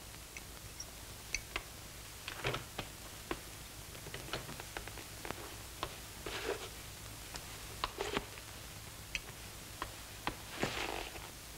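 Scattered light clicks and clinks of cutlery and dishes at a table, with a couple of brief scraping rustles, over a steady low hum.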